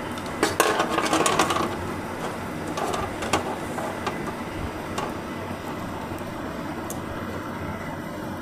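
Hands handling cables and plugs on a bare TV chassis: a cluster of rustles and clicks about half a second to a second and a half in, then a few single clicks, over a steady background hiss.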